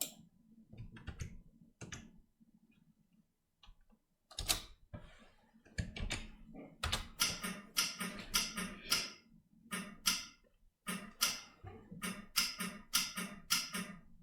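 Typing on a computer keyboard: a few scattered keystrokes, then a quick run of key clicks.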